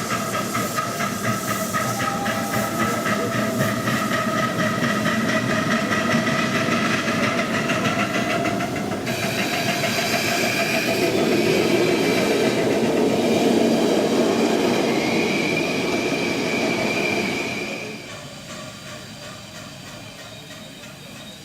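Miniature railway train running on its track, with a fast, even clatter of wheels over the rails and some hiss. It grows louder through the middle, with a faint rising whine, then falls away sharply near the end.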